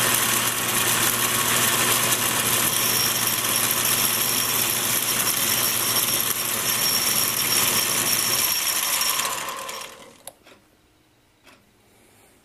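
Atlas 618 lathe running, taking a light turning cut on a small metal shaft: a steady whir of the spinning chuck and drive, with a thin high whine joining about three seconds in. The lathe is switched off near the ten-second mark and the sound dies away, leaving a few light clicks.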